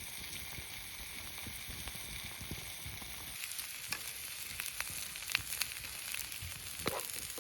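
Olive oil of a shrimp-and-mushroom ajillo bubbling and sizzling over a pine-cone fire. A steady hiss runs throughout, with scattered pops that come more often from about halfway through.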